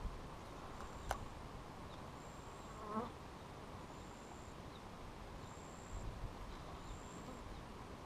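Wind buffeting the microphone as a low, uneven rumble. Over it, a faint short high chirp repeats about every second and a half, with a single click about a second in and a brief falling call about three seconds in.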